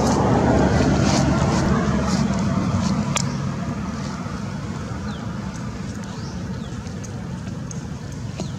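A motor vehicle's engine rumbling, loudest in the first three seconds and then easing to a steady low background hum.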